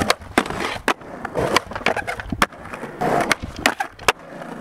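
Skateboard riding in a concrete bowl: wheels rolling over the concrete, broken by a string of about nine sharp clacks as the board and trucks strike the coping and land.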